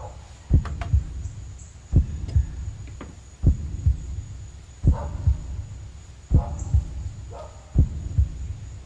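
Heartbeat sound effect: a slow, steady lub-dub double thump repeating about every second and a half.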